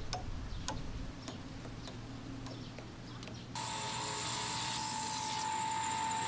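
Light, evenly spaced taps of a hand tool, a little under two a second. About three and a half seconds in they give way abruptly to an electric power tool running with a steady whine over a hiss.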